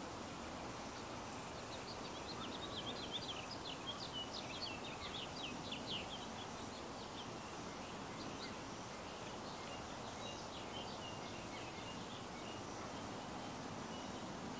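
A small songbird twittering, a quick run of short high chirps over a few seconds, then fainter, sparser chirps. Beneath it is steady outdoor background noise.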